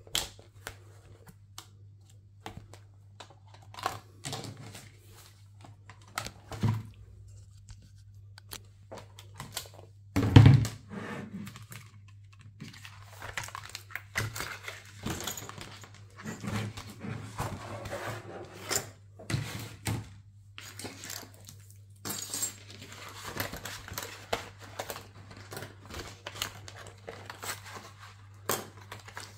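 Handling of cardstock and thin metal cutting dies on a craft mat: paper rustling and crinkling with scattered small clicks, and one loud knock about ten seconds in.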